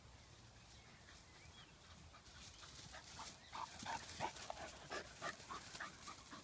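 English cocker spaniel panting in quick short breaths, about three a second, starting a couple of seconds in and growing louder as she comes close, out of breath from running after her ball.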